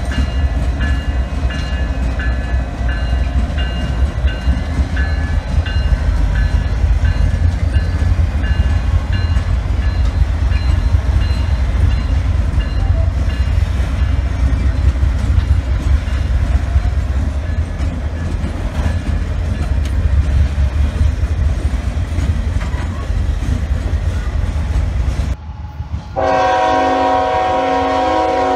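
Train passing close by: a heavy, steady rumble of locomotive and rolling cars. After a sudden cut near the end, a diesel locomotive's multi-note air horn sounds a steady chord.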